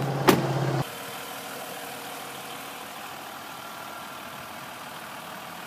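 Jeep Grand Cherokee's 3.0-litre EcoDiesel V6 turbodiesel idling with a steady hum. There is a sharp click about a third of a second in, and just under a second in the sound drops abruptly to a quieter, steady idle.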